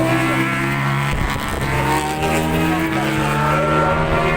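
Racing motorcycle engines running at high revs as several bikes pass in turn, each a steady engine tone that shifts slightly in pitch.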